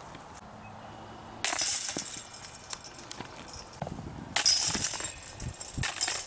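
Chains of a steel disc golf basket jangling as putted discs strike them, three times: about a second and a half in, about four and a half seconds in, and near the end. Each jangle starts suddenly and dies away over about a second.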